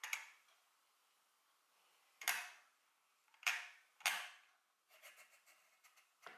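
Sharp clicks and snaps from the catches and parts of a wooden puzzle box being worked by hand: four separate clicks, then a run of faint small ticks and a last click near the end.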